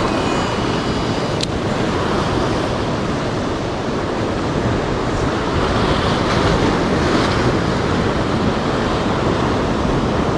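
Sea surf washing and breaking against a rocky shore, a steady rushing with wind on the microphone; a single sharp click about a second and a half in.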